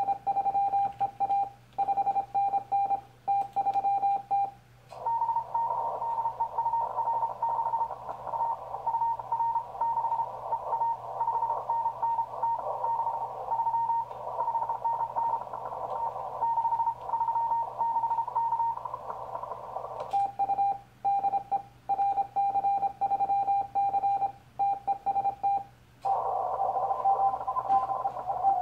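Morse code CQ call from a Yaesu FT-1000MP Mark-V Field transceiver on 40 m, heard as its keyed sidetone of about 800 Hz for the first few seconds and again for about six seconds later on. In between and at the end the receiver is listening: hiss of band noise through the narrow CW filter, with another station's Morse keying in it.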